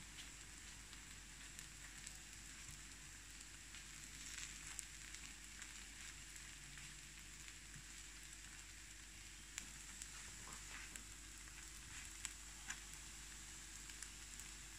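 Takoyaki balls sizzling faintly in the wells of an electric takoyaki pan, with a few sharp clicks as a wooden skewer turns them.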